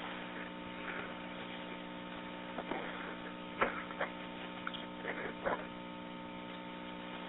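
Steady electrical hum on a telephone-quality 911 call recording, with a few faint short clicks in the middle of the pause.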